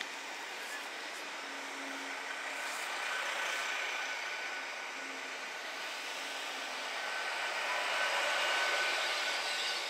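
GWR Intercity Express Train moving slowly along the platform: a steady rumbling hum of its running gear with a faint steady whine, growing somewhat louder near the end.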